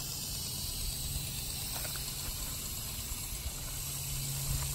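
Steady background hiss with a constant low hum underneath and no distinct events.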